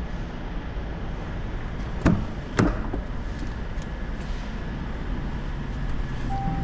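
Two sharp knocks about half a second apart over a steady low mechanical rumble.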